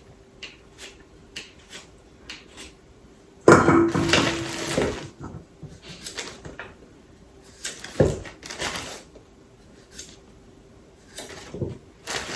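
Kitchenware clattering as dishes and utensils are handled: small scattered clicks, a loud clatter lasting about a second and a half a few seconds in, and a sharp knock about halfway through. A faint steady hum sits underneath.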